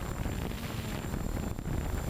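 Storm 6 hexcopter's rotors and motors running in flight, heard from the GoPro mounted on it: a loud, steady low rumble with wind buffeting the microphone and a thin, steady high tone over it.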